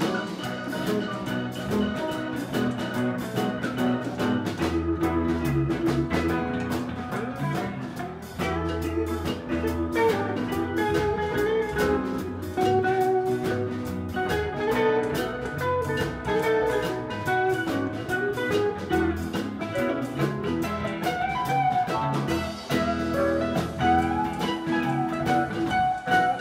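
Live band playing an instrumental passage: drum kit keeping a steady beat under bass and wandering melodic lines.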